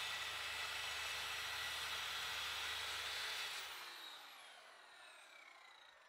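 Electric power saw cutting an MDF sheet, then switched off about three and a half seconds in, its motor and blade winding down with a falling whine.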